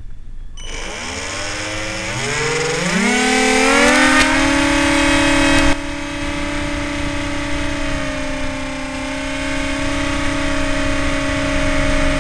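Electric motor and propeller of a Flying Fox RC plane heard from its onboard camera. The whine starts about half a second in and climbs in pitch in steps as the throttle is opened for the takeoff run, then holds steady at full power as the plane climbs away.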